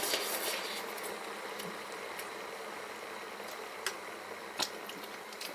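Self-heating hotpot steaming with a steady hiss that sounds incredibly like a kettle, with a couple of faint clicks partway through.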